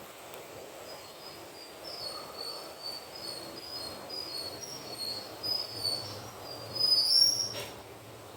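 LG T07NLA split air conditioner running with a steady airflow hiss. Over it comes a run of short, high squeaky chirps that grow louder toward the end, then a single sharp click.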